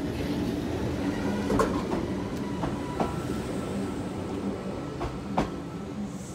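Kintetsu 16000 series electric limited express pulling out of the station past the platform, with a steady running noise and its wheels knocking over rail joints several times.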